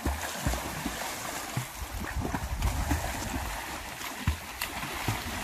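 Water splashing and churning as a person swims with overarm strokes in a pond, in irregular surges.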